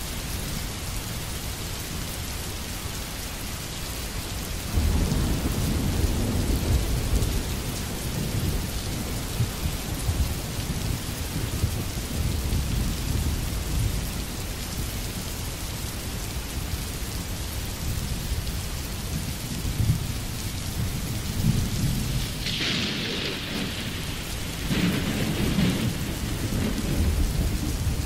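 Steady rain with low rolling thunder, the rumbles swelling about five seconds in and again near the end.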